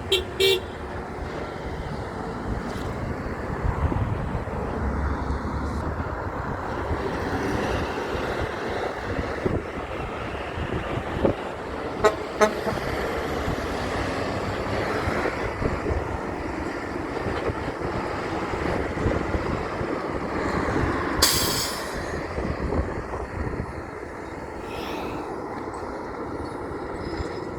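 Heavy trucks passing on a road with steady traffic noise, and short truck horn toots just after the start and again about twelve seconds in. A short, loud hiss comes about 21 seconds in.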